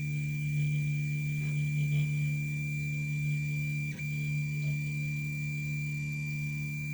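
Tevo Tornado 3D printer's Z-axis stepper motor running with a steady electrical whine. About four seconds in it briefly slows and stops, its pitch dipping, then runs on at the same pitch.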